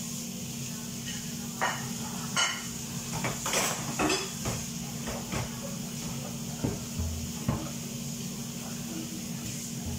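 Metal pots, pans and utensils clinking and knocking, about a dozen short strikes scattered through the middle, over a steady hum and hiss.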